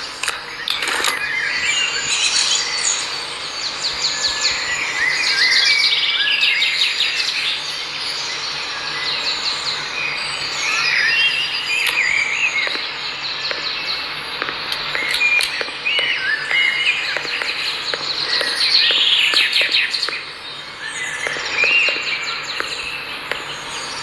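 A chorus of many birds chirping and trilling, dense and overlapping.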